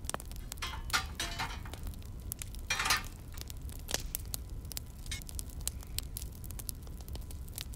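Sliced button mushrooms sizzling as they fry in a pan, with crackles and the clink and scrape of a metal spoon against the pan as they are stirred.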